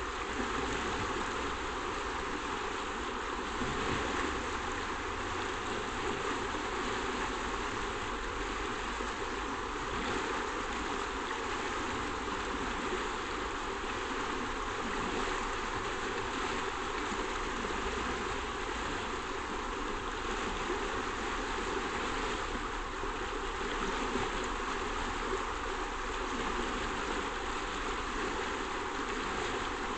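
Shallow river rushing over stones in a riffle, a steady, unbroken rush of flowing water.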